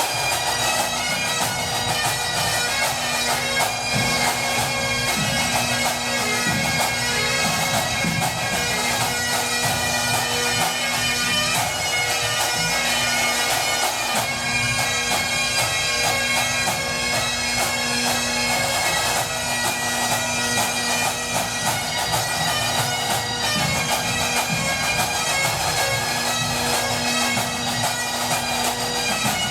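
Pipe band of Great Highland bagpipes playing a competition medley: the drones hold a steady note under the chanter melody.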